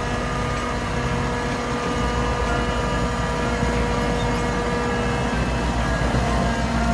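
Heavy eight-wheel dump truck's diesel engine running steadily while its tipper body is raised to dump a load of earth: a steady low rumble with a constant hum above it.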